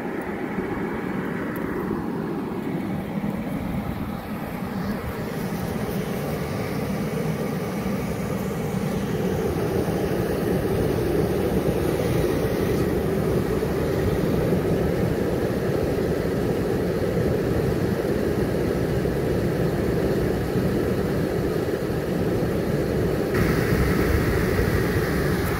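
Allegro 9538 explosion-proof confined space blower, with a 1/3 hp motor rated at 3250 rpm, running steadily on test. The sound grows louder over the first ten seconds or so.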